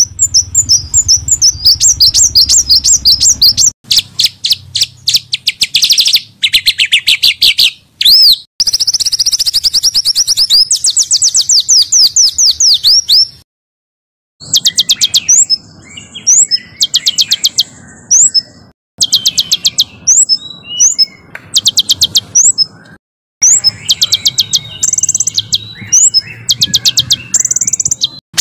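Small songbirds singing rapid-fire 'tembakan' phrases: fast runs of high, sharp, repeated chirps, many notes a second, spliced together as a song-tutor recording. The runs stop and start abruptly, with two brief silent gaps, about halfway through and about two-thirds of the way through.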